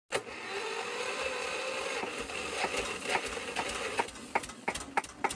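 Single-cylinder, hopper-cooled Cunewalde stationary diesel engine running. It is dense and fast for about four seconds, then slows so that its firing strokes come through as separate knocks, two to three a second. The engine is being brought down to a very slow idle after the idle setting in its injection pump was changed with an extra washer.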